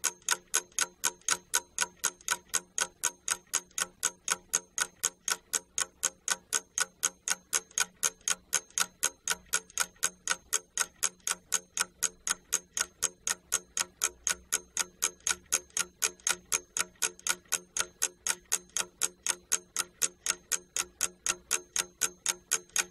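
Ticking clock sound effect, an even, fast tick at about four ticks a second, used as a timer for the pupils' answer time.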